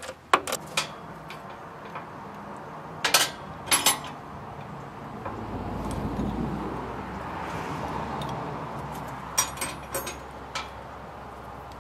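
Metal hand tools clinking and tapping against each other and the engine's metal parts, in short clusters of sharp clinks near the start, around three to four seconds in, and again near the end. In between, a soft rushing noise swells and fades.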